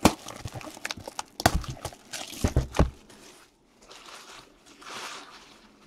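Cardboard trading-card hobby boxes handled and set down on a table: a quick run of knocks and taps with a couple of low thuds in the first three seconds, then softer rustling and sliding.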